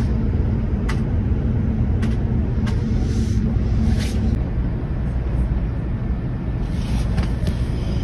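Steady low rumble with a hum that stops about four seconds in, and about five short sharp clicks scattered through it.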